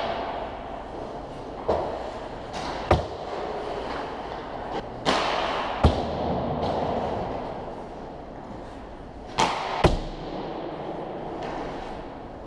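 Hockey pucks being shot and smacking into the boards and goalie, about six sharp cracks, several coming in pairs half a second apart, each ringing on in the rink.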